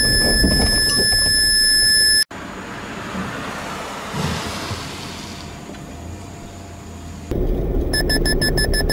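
Suzuki Alto's collision warning sounding as a steady high beep over cabin road noise, cut off about two seconds in. The car then drives past on a test track with tyre and engine noise that rises and fades. Near the end, road noise inside the cabin returns with the warning beeping rapidly, about six beeps a second, as the car closes on a stopped car at 60 km/h.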